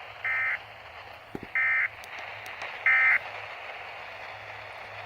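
Three short, buzzy digital data bursts from an emergency alert broadcast, about a second and a half apart, of the length of the end-of-message code that closes a bulletin.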